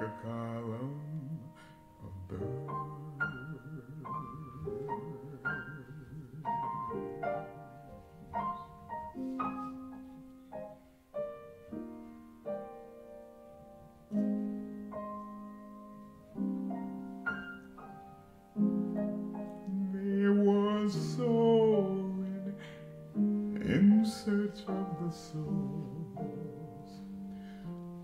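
Grand piano playing a slow jazz ballad passage of struck notes and held chords, with a wavering held tone about two-thirds through.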